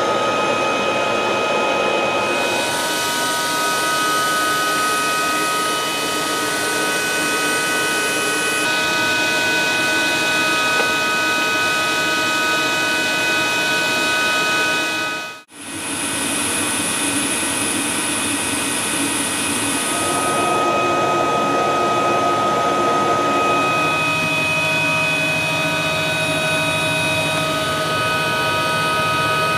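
Steady whine and rush of a CH-53K King Stallion's turbines running on the ground while it is refuelled, several high-pitched tones held over the noise. The sound cuts out for a moment about halfway through, then resumes.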